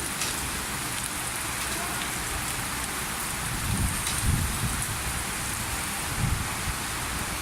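Induction furnace running: a steady hiss, with a few low thumps about four seconds and six seconds in.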